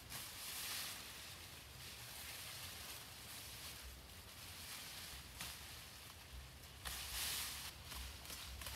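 Tall iluk grass rustling and swishing as it is handled and cut. The swishes are faint and uneven, with louder ones about half a second in and again around seven seconds in.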